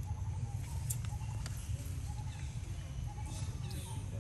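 Outdoor ambience: a steady low rumble with short faint chirps repeating throughout, a few light clicks, and distant voices.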